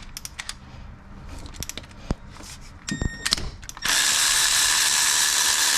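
A few light clicks of tool handling, then a handheld power tool runs steadily for about two seconds, starting about two thirds of the way in, while bolts are being worked on an engine.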